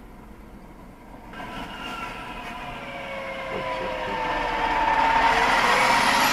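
A large fire truck approaching from behind and drawing near: its engine and tyre noise grow steadily louder from about a second in, with a few steady whining tones that slowly drop in pitch as it closes in.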